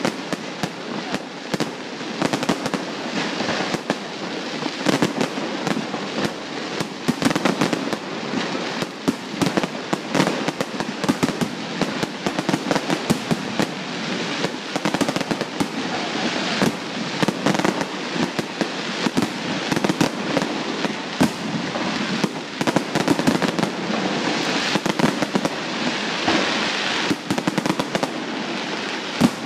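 Fireworks display going off without pause: a constant crackle of many small pops and bangs, with louder reports standing out every second or so.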